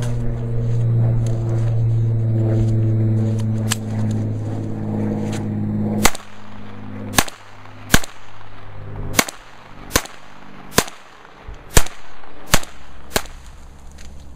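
Handgun fired nine times at a steady pace, about one shot a second, starting about six seconds in. Before the shots there is a steady low hum.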